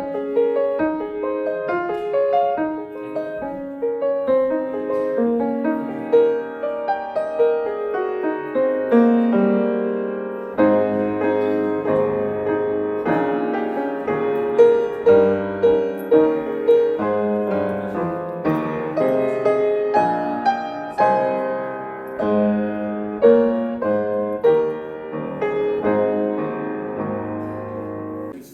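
Piano music: a slow melody over chords, with deeper bass notes joining about ten seconds in. The playing breaks off suddenly at the end.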